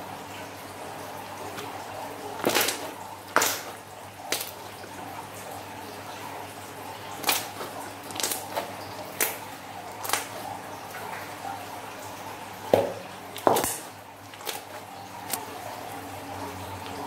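Thick, glossy slime being kneaded, pressed and stretched by hand, giving wet squishes and about a dozen sharp pops and clicks at uneven intervals as air pockets in it burst.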